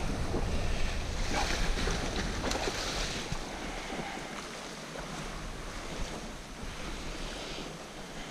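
Wind buffeting the microphone over small waves lapping on a sea-loch shore; the low wind rumble eases about halfway through.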